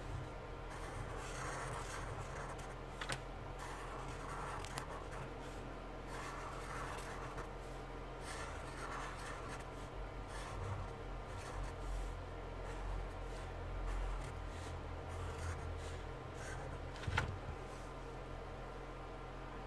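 Marker pen scratching across brown paper in short inking strokes, with a few light clicks of the pen against the sheet. A faint steady hum runs underneath.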